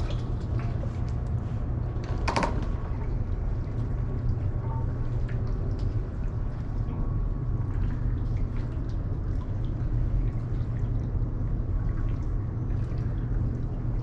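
Water lapping and trickling against a kayak hull, over a steady low rumble, with a few small knocks.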